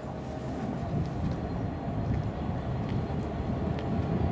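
Approaching freight train, a low rumble that grows steadily louder as it nears.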